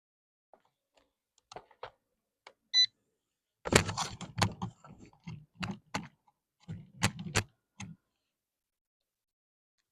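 A short, loud electronic beep, then a run of irregular clicks and knocks, like things being handled and set in place.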